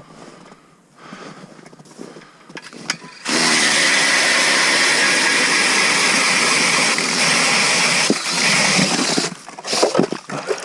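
Ryobi 18-volt cordless hammer drill turning an ice auger through lake ice: a loud, steady whirring grind of motor and auger cutting ice. It starts about three seconds in, runs about six seconds, then stops, followed by a few knocks.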